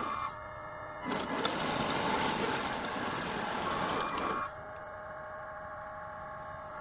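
Homemade radio-controlled hydraulic bulldozer at work: about three seconds of loud, rough mechanical noise with a thin high squeal on top, then a quieter steady hum with a few steady tones from its running motor and pump.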